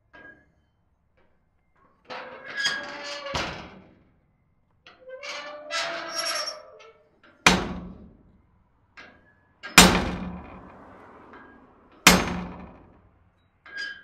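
Squeaky door hinge creaking twice as a door swings, each creak a wavering squeal about a second and a half long. Then come three sharp slams a little over two seconds apart, each with a short ringing tail.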